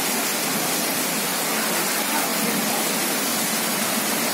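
Heavy rain falling steadily onto standing floodwater, a constant even hiss.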